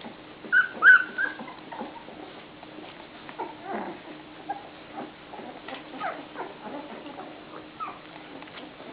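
Puppy whimpering, with a few short high-pitched cries about a second in, then softer scattered whines and small sounds.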